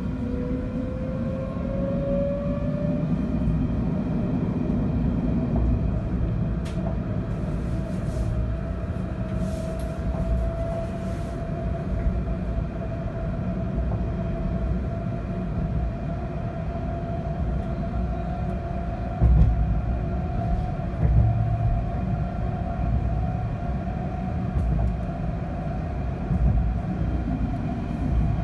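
Tram running on its rails: a motor whine rises in pitch as it picks up speed, then holds steady over a low rolling rumble. A few heavier thumps come about two-thirds of the way through.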